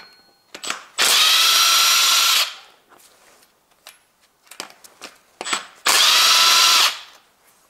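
Makita cordless power tool with a socket spinning out camshaft bearing cap bolts on a Toyota 2ZZ-GE cylinder head. It runs with a steady whine in two bursts, about a second and a half long starting a second in and about a second long near the end, with small clicks of metal handling in between.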